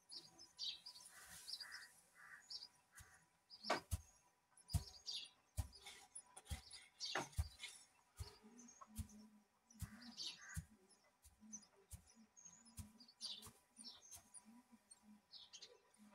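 A metal rake working through a heap of chopped dry straw, with irregular scrapes and knocks from the tines, while birds chirp in the background.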